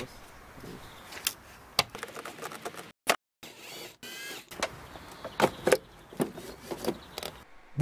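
Cordless drill-driver with a 10 mm socket whirring briefly with a rising whine as it spins out the air filter housing bolt. Around it come sharp clicks and knocks of plastic intake parts being unclipped and pulled out.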